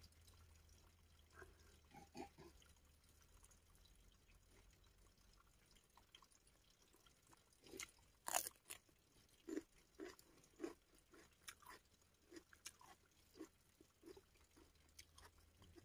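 Faint close-up chewing of a mouthful of rice and fish: soft wet mouth clicks, sparse at first, then coming about once a second from about halfway.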